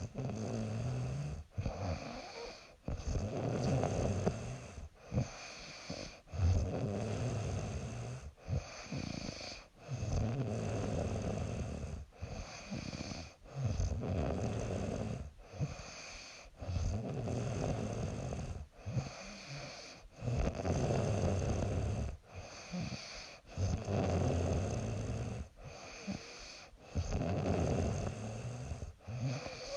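A young woman snoring in her sleep: a steady rhythm of noisy breaths, each about one to two seconds long, with short pauses between them.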